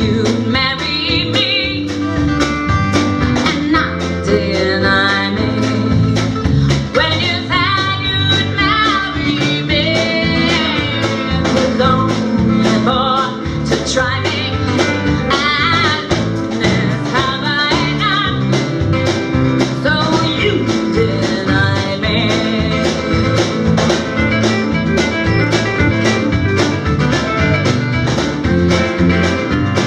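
Live band music: guitars over bass and a steady drum beat, with a wavering sung melody through much of it.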